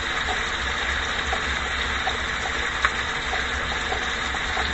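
Rib-eye steak frying in butter in a hot skillet: a steady sizzle with small crackles and pops, and one sharper pop about three seconds in.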